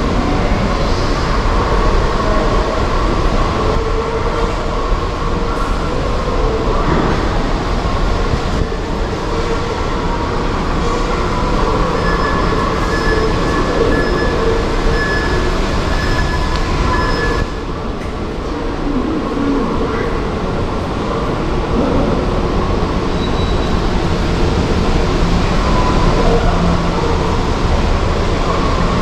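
Subway station ambience heard from the concourse: a steady rumble with a few held humming tones, in keeping with a metro train running on the tracks below. The level dips briefly a little past halfway.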